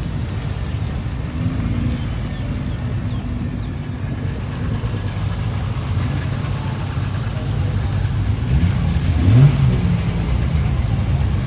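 Car engine running steadily, with a brief rev that rises in pitch about nine seconds in.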